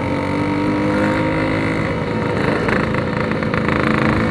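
Yamaha RX King 135cc two-stroke engine running through a Packing Power PK2 aftermarket exhaust, at a steady engine speed.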